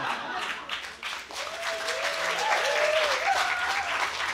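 Audience applauding, with a few voices calling out over the clapping in the middle.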